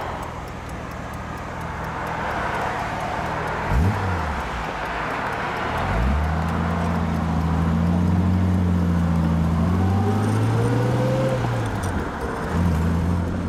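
A 1960s sports car's engine heard from inside the cabin while driving. Road noise fills the first half; from about halfway the engine note comes up strongly and climbs slightly as the car accelerates. Near the end it drops out for a moment during a gear change, then picks up again.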